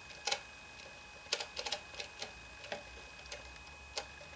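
Setting levers of a Muldivo Mentor pinwheel mechanical calculator being slid to set digits, each clicking into its detent: a string of irregular small clicks.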